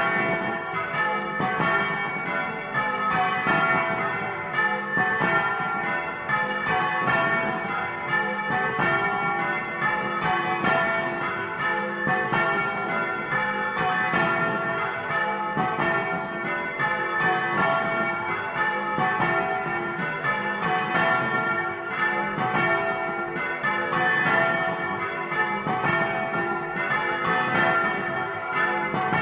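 Several church bells rung close up inside the bell tower, in a fast, continuous festive peal of overlapping strikes with the tones ringing on between them. The peal is rung for Easter to announce the Resurrection.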